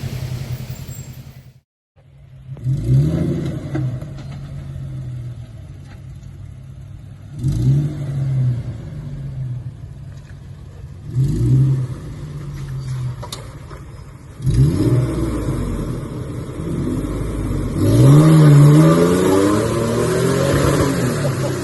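Off-road vehicle's engine revving in five surges, each rising and falling in pitch.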